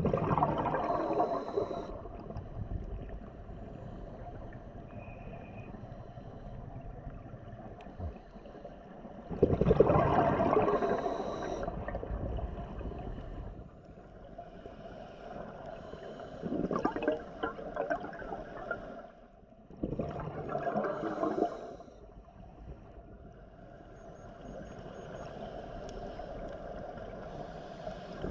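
Scuba diver's breathing recorded underwater: four bursts of gurgling exhaled bubbles from the regulator, each lasting one to four seconds, with a steadier low hiss of water between them.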